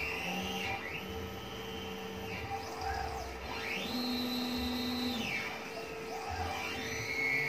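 Stepper motors of a homemade large-format CNC router driving the gantry through a series of moves. Each move is a whine that rises in pitch as the axis speeds up, holds, and falls as it slows. The longest move, near the middle, holds a high steady whine for about a second, all over a steady hum.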